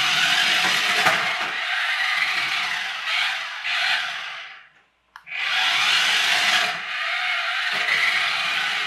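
Toy-grade 27 MHz RC car's small electric motor and gears whirring at turbo speed as it drives on hard plastic wheels across a wooden parquet floor. It stops briefly about five seconds in, then starts again.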